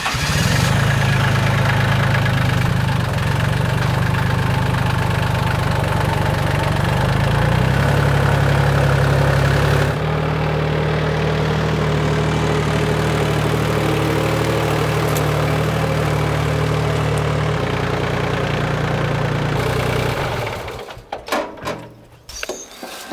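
Sawmill engine running steadily, changing its note about halfway through and again later, then shutting off near the end, followed by a few sharp knocks.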